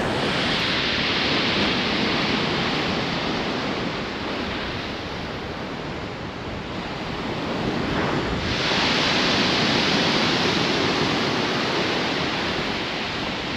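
Stormy sea surf breaking and washing up a steep shingle beach as a steady loud rush. The rush ebbs about halfway through and surges again with a fresh wave about two-thirds of the way in.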